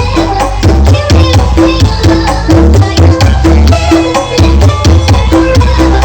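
Very loud percussion-heavy music with a deep pulsing bass, played through a parade sound-system rig (Indonesian 'sound horeg').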